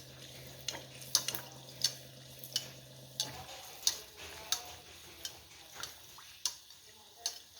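Kachori deep-frying in hot oil with a faint sizzle, while a metal spoon clicks against the frying pan about once every half second to second as the kachori is turned. A low steady hum stops a little before halfway.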